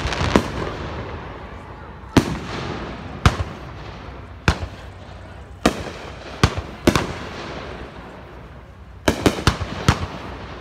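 Fireworks display: aerial shells bursting with sharp bangs at irregular intervals of about a second, each trailing off in echo, with a quick run of four bangs near the end.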